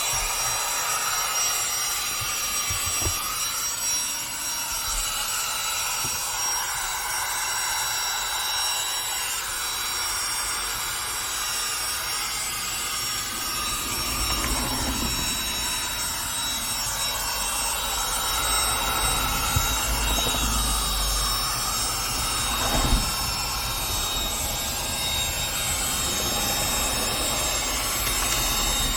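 Vacuum cleaner running steadily with a high motor whine, the rush of its airflow shifting now and then. A few brief knocks, the clearest about 23 seconds in.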